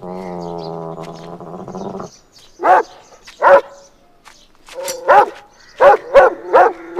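A dog's low, steady growl lasting about two seconds, then barking: two loud barks, followed by a quicker run of about five barks near the end.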